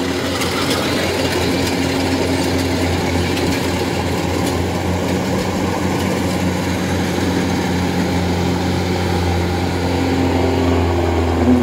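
Kubota DC-105X rice combine harvesters running steadily while cutting, a constant diesel engine drone that grows a little louder near the end as one machine passes close.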